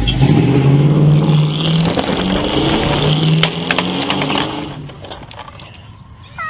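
An engine running and revving, with a few clicks, dying away about five seconds in.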